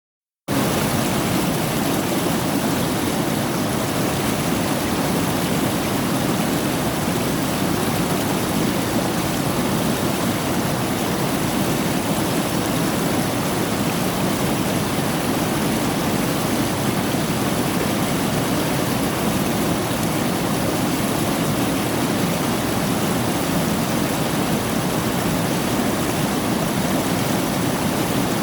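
River water rushing steadily, an even unbroken rush.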